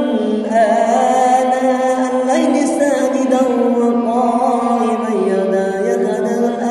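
A young man's voice chanting the Qur'an in melodic recitation, holding long drawn-out notes that step up and down in pitch.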